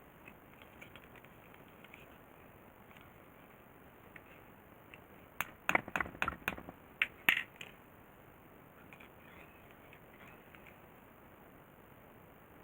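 A quick run of about ten sharp clicks and knocks, a little past the middle, with faint scattered ticks before and after.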